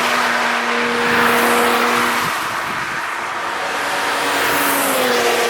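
Cars passing at speed on a racetrack, engine note and tyre-and-wind noise swelling loudest about a second and a half in, with another car approaching and passing near the end, its engine note dropping in pitch.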